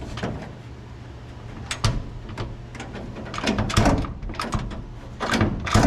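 Sheet-metal door parts being handled: a few sharp knocks and clatters, one about two seconds in, a quick run of them a little past the middle and a louder pair near the end, over a steady low hum.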